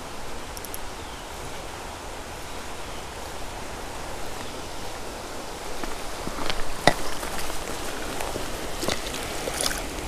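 Creek water running as a steady rush, with a few sharp splashes in the last few seconds as a hooked walleye is brought in to the landing net.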